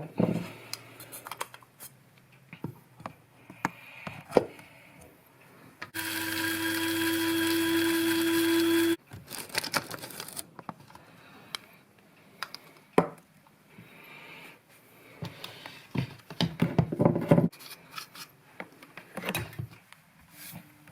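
Electric spice grinder runs for about three seconds and stops abruptly, grinding toasted Sichuan peppercorns with salt. Scattered clicks and knocks of the grinder and utensils being handled come before and after.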